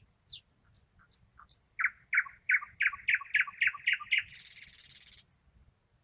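Thrush nightingale singing a song phrase: a falling whistle and a few thin high notes, then a run of about ten loud repeated notes at roughly four a second, ending in a dry rattle about a second long.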